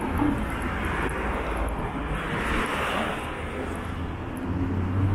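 Busy city street ambience: a steady low rumble, with a rushing noise that swells and fades in the middle.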